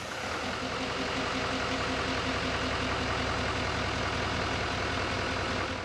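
An engine running steadily at an even speed.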